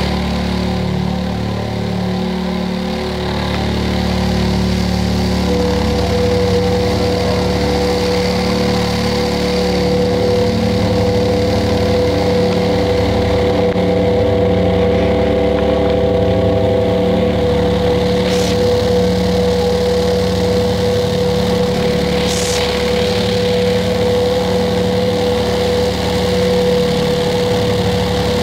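Loudspeaker driven hard with low-frequency tones, making a steady buzzing hum, with a cornflour-and-water slurry jumping on its cone. A higher steady tone joins about five seconds in.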